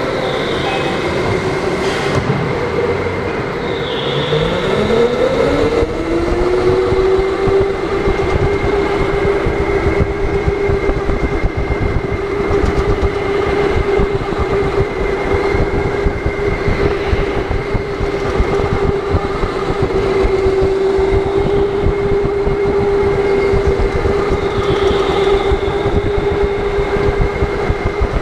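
Go-kart's electric motor whining. Its pitch rises quickly about four seconds in as the kart accelerates, then holds steady at speed, over the kart's rattle and rolling noise.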